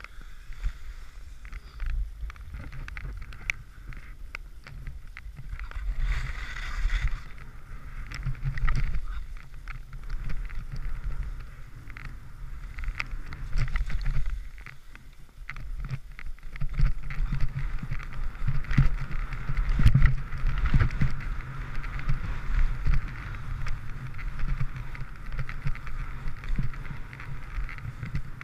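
Skis hissing and scraping over snow on a downhill run, with wind buffeting the microphone as a low rumble; louder through the second half.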